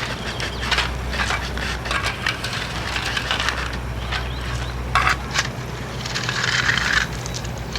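Small stones scraping and clattering as a plastic toy construction vehicle pushes a load of them along, in irregular clicks and gritty scrapes.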